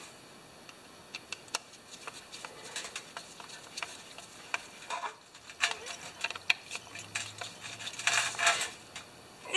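Scattered light clicks and taps of a screwdriver and small carburetor parts being handled, with a few brief rustles.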